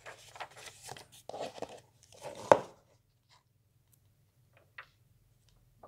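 Glossy comic book pages being turned by hand: paper rustling for about two and a half seconds, ending in one sharp page snap, followed by a few faint ticks.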